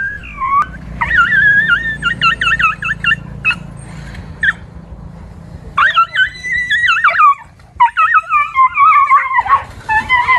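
Dogs yelping and whining in high-pitched, wavering cries in quick runs, with a pause in the middle, over a low steady hum.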